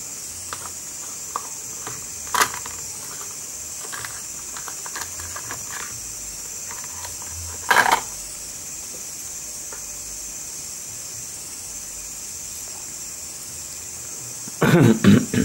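Short clicks and knocks from a smartphone's frame being handled and fitted back onto the phone during reassembly: a sharp click about two and a half seconds in, another about eight seconds in, and a quick run of knocks near the end, over a steady hiss.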